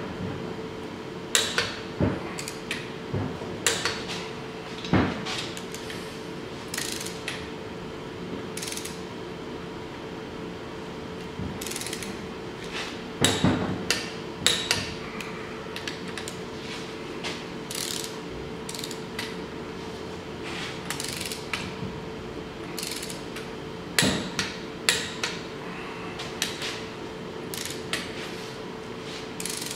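Socket wrench ratcheting and clicking as the cylinder head bolts are torqued down: short sharp metal clicks coming in scattered runs, with busier bursts about 13 and 24 seconds in.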